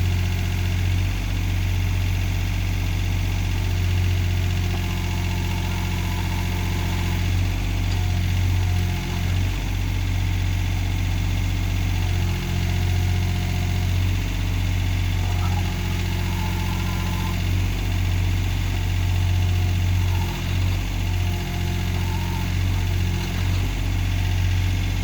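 John Deere backhoe's diesel engine running steadily. A faint higher whine comes and goes a few times over it.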